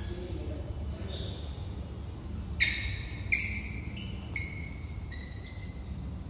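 Sports shoes squeaking on an indoor badminton court floor as the players move. About six short, high-pitched squeaks, the loudest two sharp ones near the middle, over a steady low hum of the hall.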